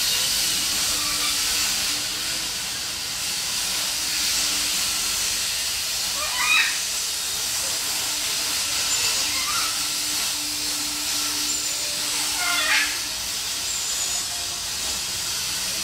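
A steady, loud, high sizzling hiss from a chorus of summer cicadas. Two brief wavering chirps cut through it, about six and a half and thirteen seconds in.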